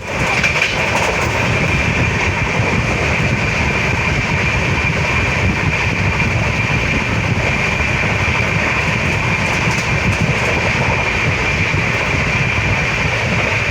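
A moving train heard from on board: the steady running noise of the wheels on the track, with a steady high tone running through it.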